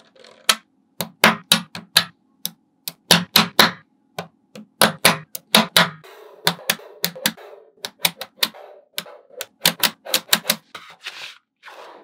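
Small magnetic balls clicking sharply as they snap together, in a quick, irregular run of clicks with short stretches of rattling between them.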